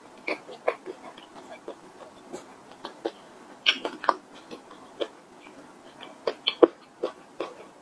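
Close-miked chewing of a mouthful of mooncake: wet mouth clicks and crackles at irregular intervals, some much louder than others.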